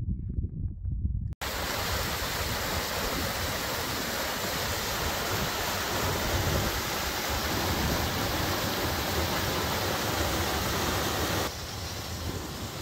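Steady, even rush of fast-flowing mountain creek water. Before it, a few dull thumps in the first second and a half, and a sudden cut to the rush; the rush drops slightly in level after another cut near the end.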